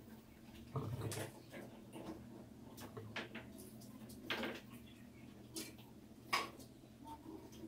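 Mice scrambling over a clear plastic container trap and its lid: scattered faint clicks and scratches of their claws at irregular moments, over a low steady hum.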